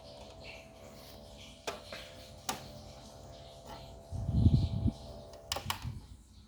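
Small USB box fan motor running with a steady hum, broken by a few sharp clicks and a loud low handling rumble about four seconds in. The hum stops just after a pair of clicks near the end.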